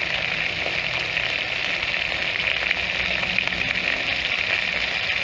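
Chicken pieces frying in sesame oil in a wok, sizzling steadily as they brown, with a fine crackle.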